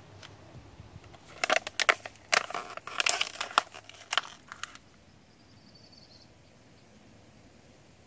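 Thin plastic drink bottle crinkling and crackling as it is gripped and cut with scissors: a quick run of sharp crackles lasting about three seconds, starting a little after the first second.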